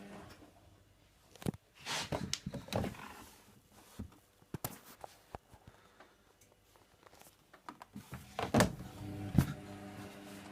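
Hoover Nextra washer-dryer mid-wash: the drum motor's hum dies away into a pause filled with scattered clunks and knocks from the drum and its load. The motor hum starts again about eight seconds in, with the loudest knocks coming as it picks up.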